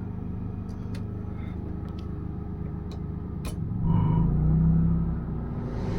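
Travel trailer's rooftop air conditioner being switched on: a low hum with a few light clicks, then about four seconds in the unit starts with a louder low rumble and hum that settles into steady running.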